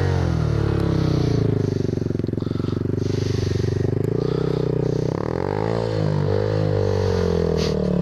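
Honda Grom's small single-cylinder engine running and being revved as the bike pulls away across sand, its pitch rising and falling, most of all about five seconds in.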